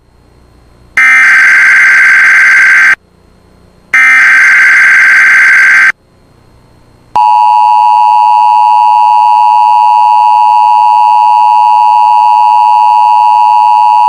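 Emergency Alert System tones marking the start of an Amber Alert. Two buzzy SAME data header bursts of about two seconds each come a second apart. About seven seconds in, the steady two-tone attention signal starts and holds.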